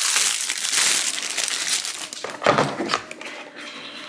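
Packaging crinkling and rustling as items are handled and unwrapped, with a sudden knock about two and a half seconds in.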